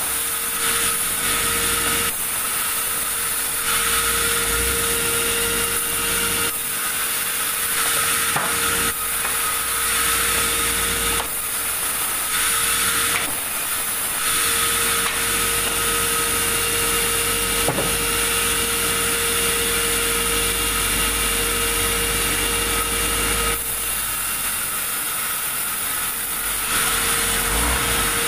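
Sawmill saw cutting through a large log: a steady machine tone under a loud, high-pitched sawing hiss that eases off briefly several times, most noticeably for a few seconds near the end.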